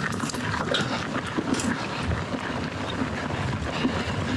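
Commencal Meta TR mountain bike riding down a rough dirt singletrack: tyres rolling over dirt and stones with irregular rattles and clicks from the bike, and wind noise on the helmet-mounted microphone.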